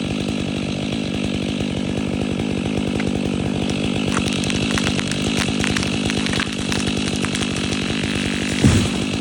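Stihl chainsaw engine running at a steady speed, with crackling from about the middle and a sharp thud near the end.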